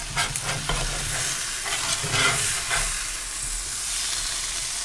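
Shaved steak, onions and melted cheese sizzling in a cast-iron skillet, with a steady hiss. A metal spatula scrapes across the pan several times as the filling is worked loose and lifted out.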